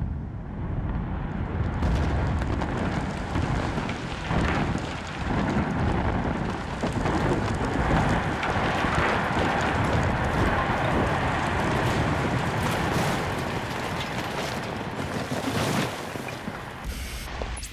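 A 31-storey reinforced-concrete tower collapsing in an explosive demolition, heard from a camera riding down on the falling building. A continuous crashing rumble is scattered with many small cracks and impacts; it is loudest about halfway through and eases near the end.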